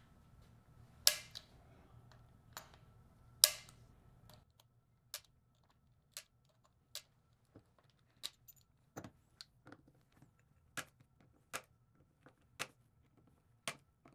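Wheeler FAT Wrench torque-limiting screwdriver clicking as it slips at its 20 inch-pound preset on the scope-ring screws. Sharp single clicks: two louder ones in the first few seconds, then a run of lighter ones about every half second to one second.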